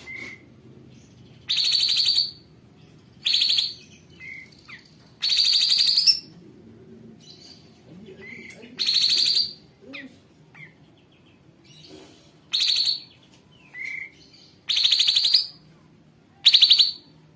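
Kapas tembak songbird repeating loud, harsh, rasping calls, about seven in all, each lasting under a second and spaced a second or two apart, with a few short softer notes in between.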